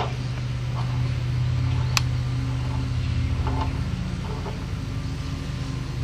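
A steady low hum, with a single sharp click about two seconds in and a few faint handling sounds.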